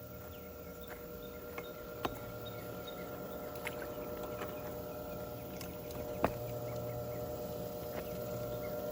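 Above-ground pool's filter pump running with a steady hum, with a few light knocks, the sharpest about two and six seconds in.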